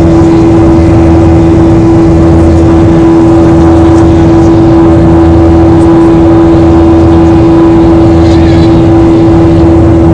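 Cabin noise of a Boeing 737-800 climbing after takeoff: its CFM56 jet engines running at climb thrust, a loud steady drone with one strong constant hum over a low rumble.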